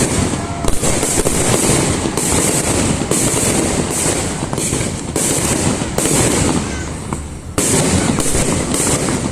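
Fireworks display: a dense, continuous barrage of bangs and crackling, easing briefly about seven seconds in before picking up again.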